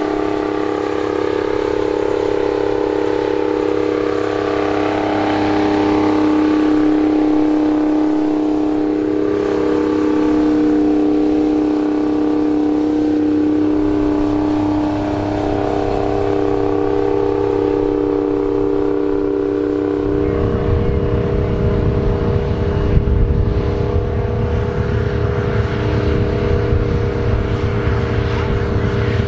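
Big farm tractor engines running steadily under load while plowing, a constant droning hum; about twenty seconds in the sound changes abruptly to a rougher, deeper rumble.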